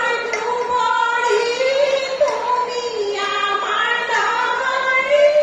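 A high voice singing a melody in long held notes that slide from pitch to pitch.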